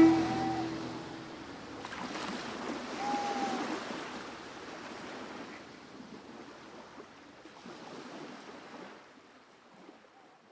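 The last fiddle note dies away, leaving waves washing in slow surges that gradually fade out.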